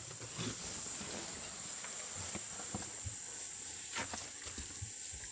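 A steady high-pitched insect drone, like crickets or cicadas, with a few faint scattered knocks.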